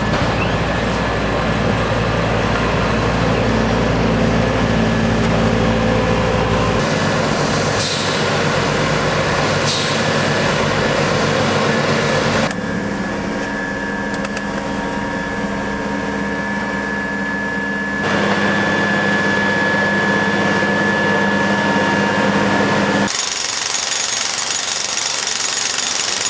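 Road-works machinery running: heavy engines with a steady mechanical rattle. The sound changes abruptly several times.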